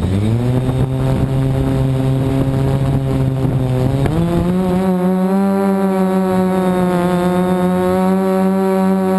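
Multirotor drone's electric motors and propellers spinning up from rest into a steady, loud hum, which steps up to a higher pitch about four seconds in as the throttle is raised.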